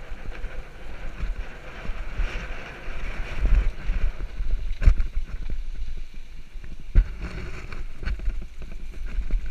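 Mountain bike rolling fast downhill on a dirt track: wind buffeting the microphone over the rumble and rattle of tyres and frame on the rough ground, with two sharp knocks about five and seven seconds in.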